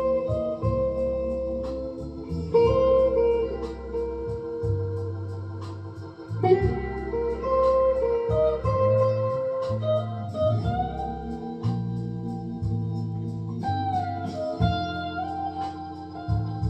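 Electric guitar lead with upward string bends, played over a backing track of organ chords, bass and a steady beat.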